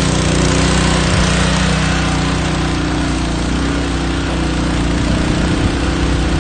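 Small gasoline trash pump engine running steadily under load, pumping pool water to a fire hose, with a steady hiss over it.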